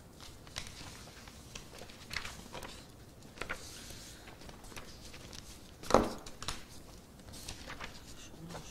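Sheets of paper being handled and shuffled on a meeting table, with scattered light rustles and clicks and one louder knock on the table about six seconds in.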